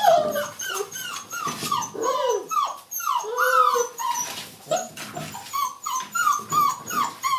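A litter of six-week-old puppies whining and yelping, many short high calls overlapping several times a second.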